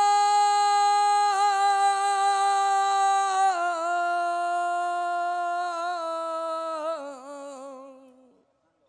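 An unaccompanied male flamenco singer holds one long sung phrase. Its pitch steps down in a few stages with wavering ornaments, and it fades out near the end.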